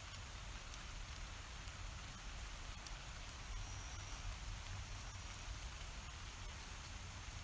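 Steady rain: an even hiss with a few faint scattered drop ticks, over a low steady rumble.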